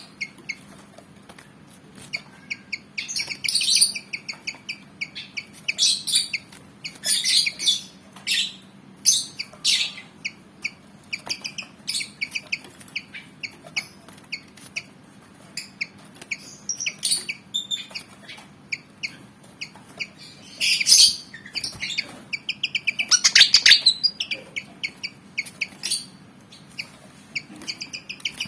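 Pied fantail (kipasan Jawa) singing in repeated short bursts of quick, chirpy notes with brief pauses between phrases, the agitated, combative song of a bird eager to fight. A faint steady hum lies underneath.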